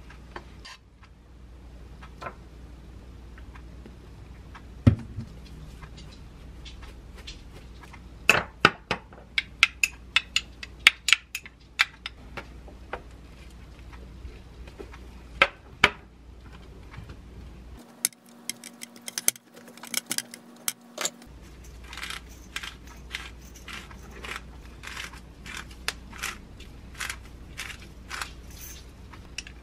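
Food-prep clicks and taps: a metal spoon clinking in a small glass bowl and a knife tip pricking thick pork loin steaks on a stainless steel tray, in a run of sharp clicks. Near the end come quick ratcheting clicks, a few a second, from a hand pepper grinder.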